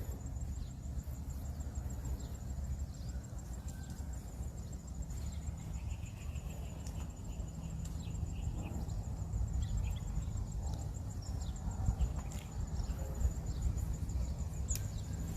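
An insect trilling steadily in a high, rapidly pulsing tone, over a constant low rumble, with a few short high chirps scattered through.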